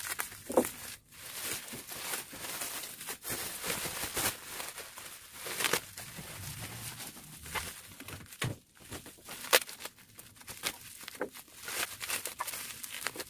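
Bubble wrap being cut with scissors and pulled off a bottle: plastic crinkling and rustling with many irregular crackles.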